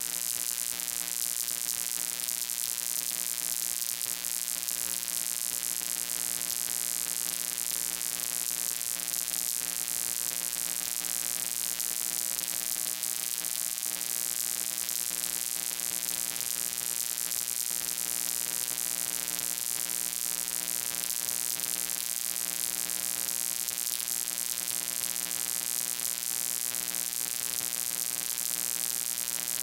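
Steady electrical buzz: a low mains-type hum with many overtones under a constant hiss, unchanging in level or pitch.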